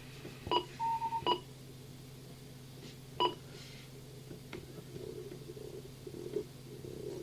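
Electronic signalling beeps received over a scanning radio. About half a second in there are two short beeps with a brief steady tone between them, and about three seconds in there is another single beep. A low steady hum runs underneath.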